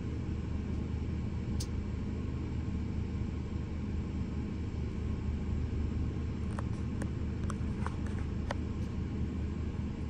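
Steady low drone of an onboard generator running while it charges an EdoStory NBoost 1500 power station at about 1,500 watts, with the power station's cooling fan running. A few faint ticks come in the last few seconds.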